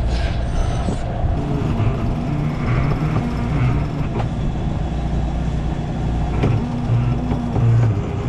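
Sailboat's engine running steadily under way, a continuous low rumble.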